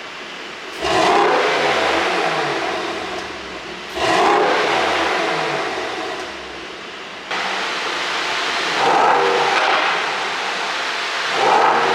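Mercedes-AMG GT63 S twin-turbo V8 being revved in repeated blips, about five sudden rises each falling slowly back, through an exhaust whose ECU is tuned for pops and crackles.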